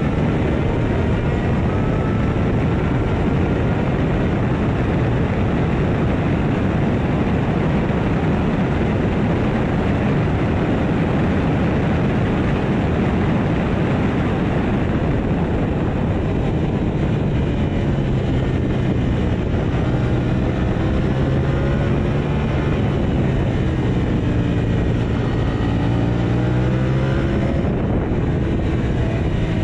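KTM 890 Duke R's parallel-twin engine at racing speed, heard from an onboard camera under heavy wind rush. For the first half the engine is held at high revs down a straight; from about halfway its note repeatedly drops and climbs again as the rider shifts gears and works through corners.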